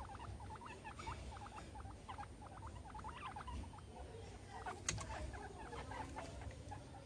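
Guinea pigs squeaking softly, short quick squeaks coming several a second, with one sharp click about five seconds in.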